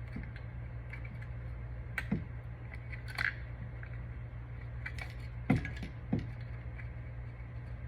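Four light clicks and taps of pliers and a bent paper clip against a small spring and the caliper handle's lever as the spring is stretched toward its latch, over a steady low hum.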